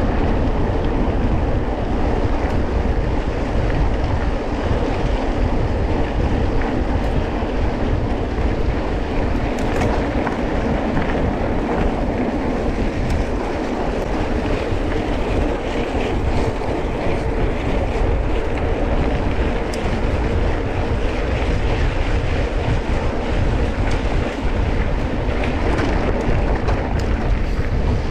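Off-road trail vehicle running steadily while being driven over a trail, its engine mixed with a dense, rushing noise.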